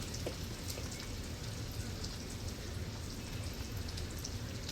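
Stir-fried rice and vegetables sizzling in hot oil in a pan: a steady frying hiss with scattered small crackles and pops.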